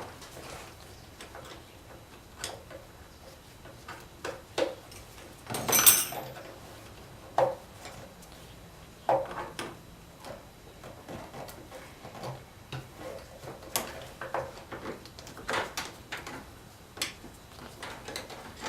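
Hand tools and engine-bay parts being handled, knocking and clinking irregularly, with one louder clatter about six seconds in, as the battery is disconnected and the stock air box is taken out.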